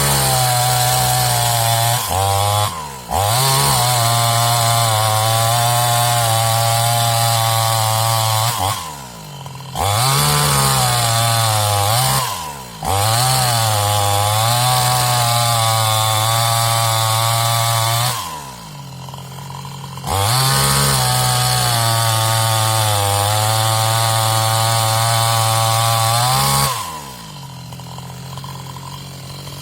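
New West 628 two-stroke chainsaw held at full throttle while cutting wood, its pitch wavering under load. It runs in four long bursts: one short drop about nine seconds in, another brief one a few seconds later, a longer drop near eighteen seconds, and back to idle near the end.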